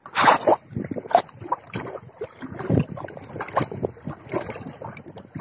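Water sloshing and splashing in a plastic bucket as a hand stirs through and pulls out green moss bait, in irregular splashes.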